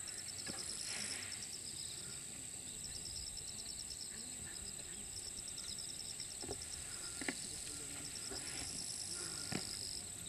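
Insects chirping in the grass: a steady high-pitched hum with a fast, evenly pulsed chirping over it that comes in runs, stopping and starting. A few short sharp clicks come in the second half.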